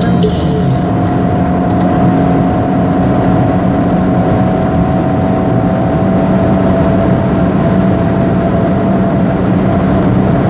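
Car cruising at highway speed, heard from inside the cabin: a steady engine hum with tyre and road noise.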